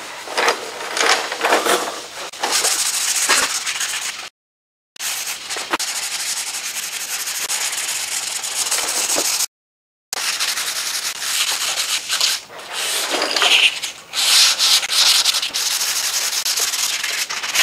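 Dry hand block sanding of a primered car body panel: sandpaper on a sanding block scraping back and forth in repeated strokes along the lower door and rocker panel, with no power tools. The sanding cuts off into silence twice, for about half a second each.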